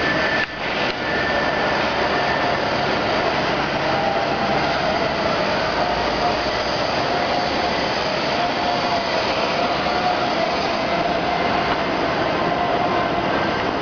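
Steady rushing noise of a bicycle ride: air over the microphone and tyres rolling on asphalt, with a faint wavering whine behind it.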